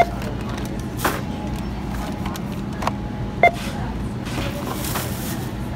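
Self-checkout barcode scanner beeping twice, at the start and about three and a half seconds later, as items are scanned, over a steady low hum of store background noise.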